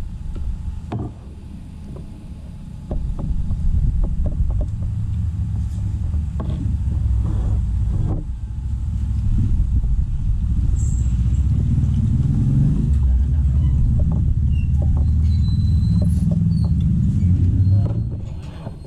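A loud, uneven low rumble that swells about three seconds in and drops away near the end, with a few light clicks and knocks of dishes and utensils.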